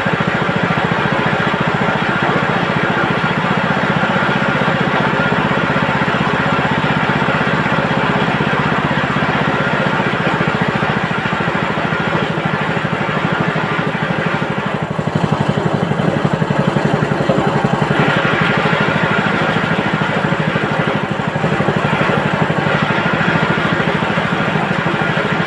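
Chicken-plucking machine running steadily, its motor-driven drum spinning; the sound gets louder and changes for a few seconds a little past the middle.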